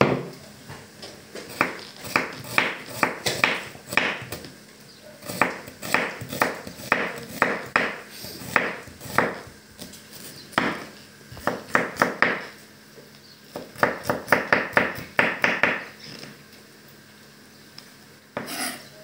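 Chef's knife slicing and chopping a red onion on a wooden cutting board: quick runs of sharp knocks as the blade hits the board, with short pauses between runs.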